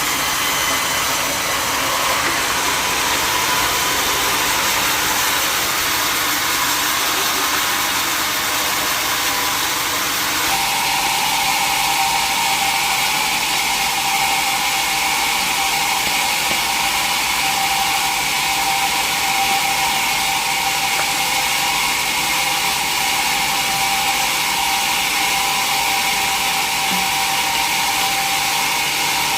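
Sawmill saw cutting mahogany, a steady loud machine noise whose tone shifts abruptly about ten seconds in.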